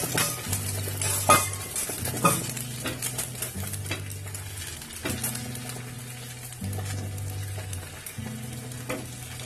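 Beaten egg frying in hot oil on a tawa, a steady sizzle, with a few sharp metallic clinks against the pan.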